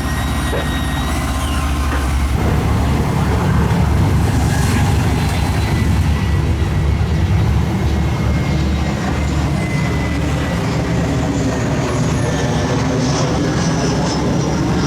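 Excavator's diesel engine running steadily as a continuous low rumble, as it works scooping mud.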